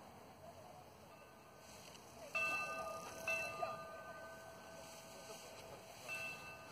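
A chord of steady ringing chime tones starts about two seconds in, breaks off briefly, then holds again before fading, over faint distant voices.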